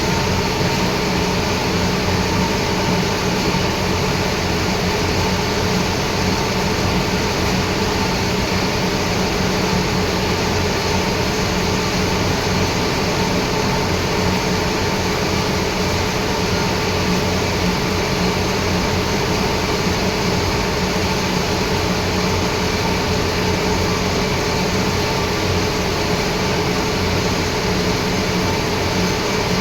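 Metal-working lathe running steadily: a continuous mechanical hum with a few steady tones over a broad machine noise.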